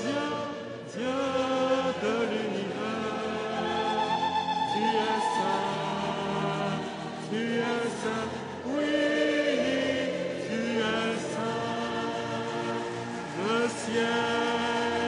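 A church choir singing a hymn in several voices, the notes often sliding up into long held tones.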